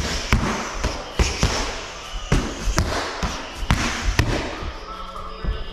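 Punches and kicks landing on focus mitts and Thai pads in quick combinations: a run of sharp slaps and thuds, several a second, some in quick pairs.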